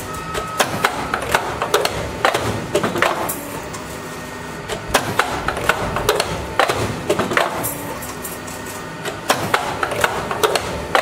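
Automatic pneumatic wire-hook bending machine cycling: clusters of sharp metallic clacks and knocks from the air cylinders and bending arms working the iron wire, repeating every couple of seconds.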